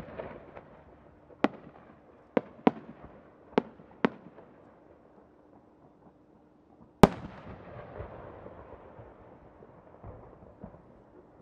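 Five sharp pops between about one and four seconds in, from the small effects on the rising tail of a No. 10 (about 30 cm) four-core chrysanthemum firework shell. About seven seconds in comes one loud boom as the shell bursts, rolling away in a long echo.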